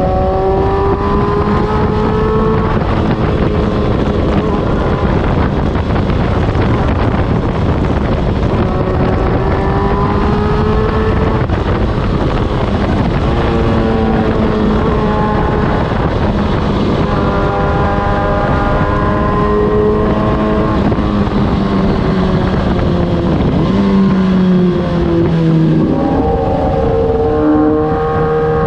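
Suzuki GSX-R 1000 inline-four running through an Austin Racing muffler while riding. The exhaust note climbs in several runs, each cut short by a gear change, over constant wind rush. Near the end the revs drop and the note settles lower.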